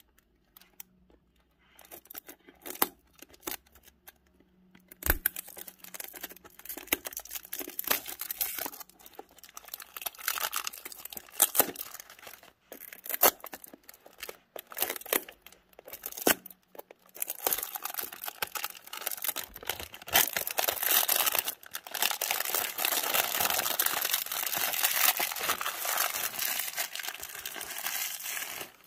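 Clear plastic shrink-wrap being torn and peeled off a cardboard box by hand. Scattered crackles and tears with short pauses, then several seconds of continuous crinkling near the end.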